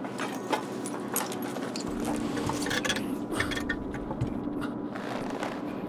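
Small clicks, clinks and scrapes of objects and clothing being handled, scattered irregularly over a steady low hum.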